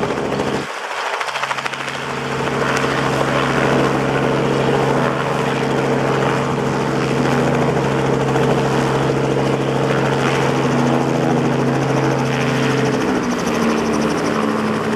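Robinson R44 helicopter's six-cylinder piston engine and main rotor running steadily on the ground. About two seconds before the end the lowest tone drops away and the hum shifts.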